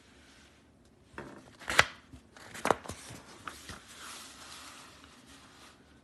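Pages of a picture book being turned: a few sharp paper snaps, two of them loud, followed by soft paper rustling that fades out.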